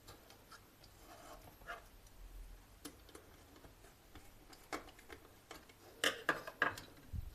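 Faint, scattered clicks and taps of a wire end being fitted into the line terminal on the back of a plastic 16 A power socket, with a quicker run of louder clicks near the end.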